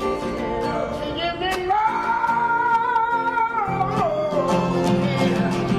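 Acoustic guitar strummed with a voice singing along; about two seconds in, the voice holds one long, wavering note for about two seconds.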